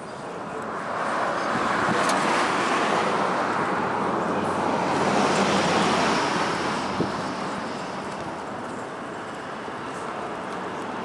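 Road traffic: cars passing on a nearby road, a steady hiss of tyres and engines that swells twice and then eases off.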